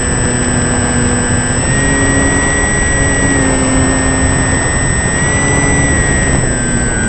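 A motor running loudly and continuously, its whine and hum shifting together up and down in small steps every second or two as its speed changes.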